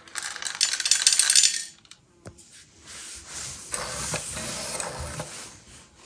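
Petgugu smart pet feeder dispensing dry kibble: pellets clatter down the chute into the plastic tray in a loud burst lasting about a second and a half, then a single click, then a quieter steady rattle for the last few seconds. The feeder keeps dispensing because its tray scale has not yet reached the set 10 g portion.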